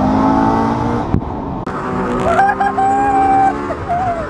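Toyota GT86's HKS-supercharged 2.0-litre flat-four pulling under throttle, heard from inside the cabin, its revs climbing. About a second in there is a sharp break, as at a gear change, after which the car pulls again with a high, wavering tone over the engine.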